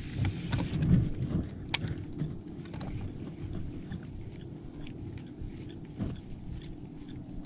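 Baitcasting reel on a cast: the spool's high whir cuts off within the first second as the lure lands, then the reel is wound in with light clicks and taps over a steady low hum.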